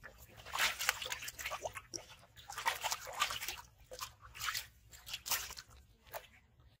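Live carp splashing in shallow water in a metal basin as hands move them about: irregular bursts of sloshing and wet splashes, about five times.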